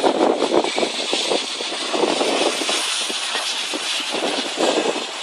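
Floodwater rushing and churning around an SUV wading through it, a steady, loud roar of water with no clear engine note.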